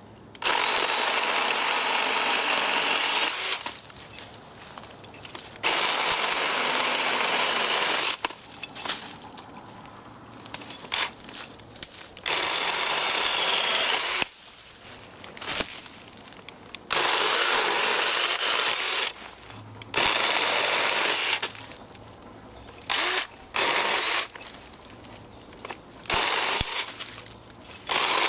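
Black & Decker Alligator cordless lopper chainsaw running in repeated runs of two to three seconds as its chain cuts through fallen branches, with several short blips of the motor near the end. Between the runs there are quieter knocks and rustling of the branches being handled.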